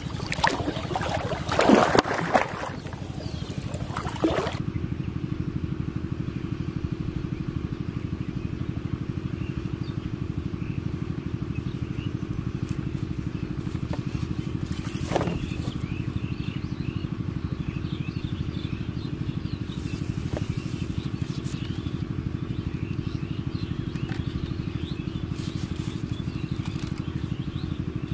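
A hooked fish splashing and thrashing in shallow water for the first few seconds. After that, a steady low drone with a fast, even pulse, like an engine running, continues without change.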